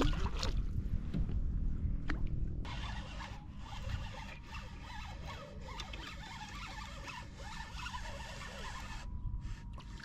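Fishing reel being cranked to wind in line: a fast, dense rattling whirr that starts a few seconds in and stops abruptly near the end, over a low rumble.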